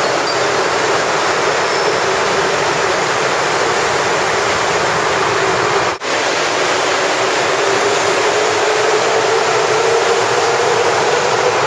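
Rubber-tyred Montreal metro train running alongside the platform and pulling out of the station: a loud, steady rushing noise with a hum that slowly rises in pitch.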